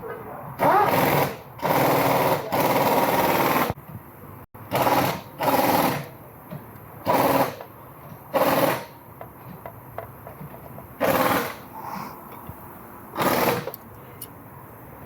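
Lexus LS460 V8 running with a rapid mechanical ticking and misfire, which the owner puts down to a broken direct injector. About eight short loud bursts of noise break over it at uneven intervals.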